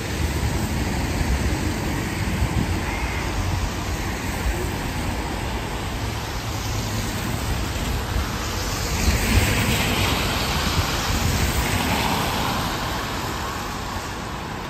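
City street traffic: a steady low rumble with a vehicle passing, its hiss swelling from about eight seconds in, peaking, and fading out over the next few seconds.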